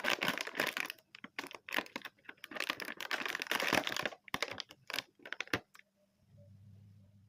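Close-up mukbang eating noises: dense crackling and clicking as sponge cake is handled and eaten. The clicks thin out after about four seconds and stop, followed by a faint low hum near the end.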